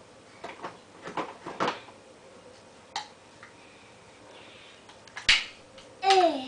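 Plastic toy dishes clicking and knocking together as they are handled: a cluster of light knocks in the first two seconds, a single click about three seconds in, and a sharper, louder clack just after five seconds. Near the end comes a short vocal sound falling in pitch.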